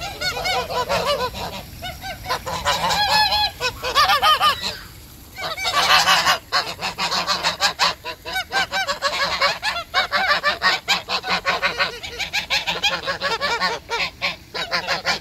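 A flock of domestic geese honking loudly, with many rapid, overlapping calls and a brief lull about a third of the way in.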